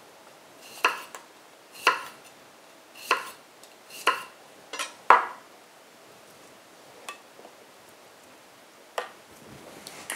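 Chef's knife slicing a cucumber on a wooden cutting board: six sharp knocks of the blade striking the board, about one a second, then two lighter taps later on.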